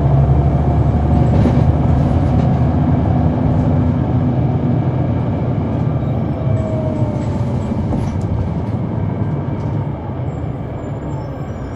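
Caterpillar C9 ACERT diesel of a 2004 Neoplan AN459 articulated transit bus running under way, heard from inside the bus, with a whine above the engine that sags in pitch partway through. The engine sound slowly fades and drops a little near the end as the bus eases off.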